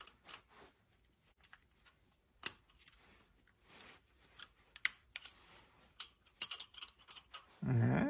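Light metal clicks and scrapes of a pick working the pad retaining wire out of a Toyota Tacoma front brake caliper, with several sharp ticks in the second half. A short, low vocal sound near the end.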